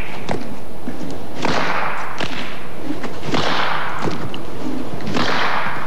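A whip-like cord swung through the air: three long whooshing swishes with short sharp snaps between them.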